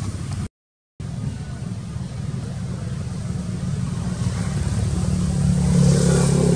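Motor vehicle engine passing, growing louder to a peak near the end and then easing off, with a brief drop to silence about half a second in.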